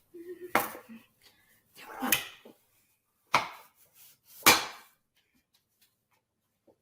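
Four sharp knocks and thuds, a second or so apart, the last the loudest: things being handled and set down on a kitchen counter.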